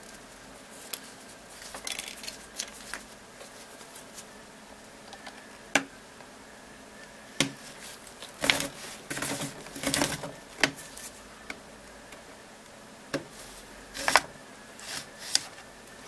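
Amazon Fire HD 10 tablet being pried open along its edge with a thin plastic opening pick: irregular sharp clicks as the case's plastic tabs release, with short scrapes of the pick in the seam between them.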